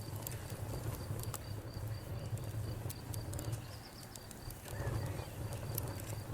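Wood fire crackling, with irregular sharp pops and snaps over a low steady rumble. A high, evenly pulsing chirp, typical of a cricket, runs underneath.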